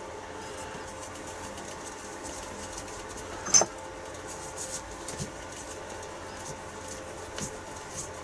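Metal parts being handled on a small metalworking lathe: one sharp, high ringing clink about three and a half seconds in, then a few lighter clicks and scrapes, over a faint steady hum.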